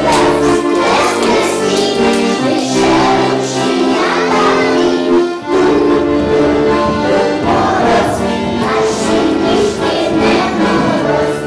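A group of young children singing a song together over a musical backing.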